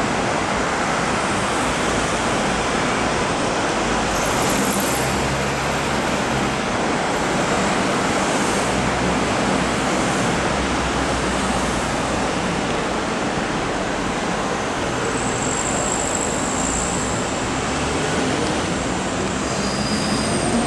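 Steady noise of city road traffic mixed with an MTR M-Train electric metro train rolling slowly along an elevated track, with a faint high wheel squeal in the last few seconds.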